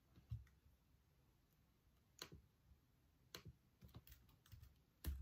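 Faint, sparse keystrokes on a laptop keyboard: single taps at uneven intervals, roughly one a second, with a heavier tap near the end.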